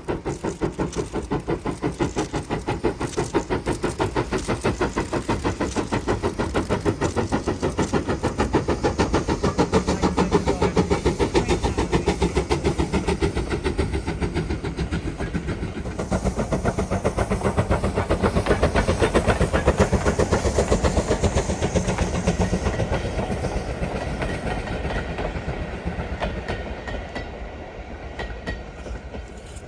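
Ivatt Class 2 2-6-0 steam locomotive working its train past, its exhaust beating in a rapid, even rhythm with clanking of the running gear and coaches. It grows louder to a peak about two-thirds through, then fades over the last few seconds as the train draws away.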